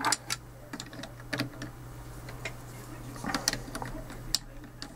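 Black plastic pieces of a ShengShou 7x7x7 puzzle cube clicking and clattering as they are fitted back around the cube's core by hand: irregular sharp clicks, with a busier cluster about three and a half seconds in.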